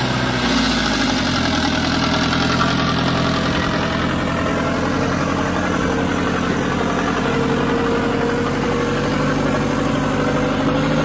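Farmtrac 6055 turbo tractor's diesel engine running steadily while pulling a disc harrow through the soil. A thin whine in the engine sound rises slowly in pitch over the second half.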